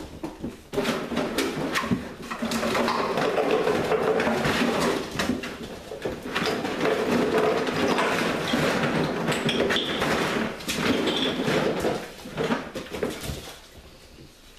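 A litter of young puppies play-growling and whimpering as they wrestle and tug, mixed with knocks and clatter of plastic jugs and toys on a tile floor. It starts about a second in and dies down shortly before the end.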